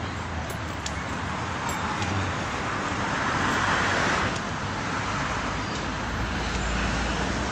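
Road traffic noise: a steady wash of passing cars, swelling as a vehicle goes by about three to four seconds in, with a deep rumble setting in near the end.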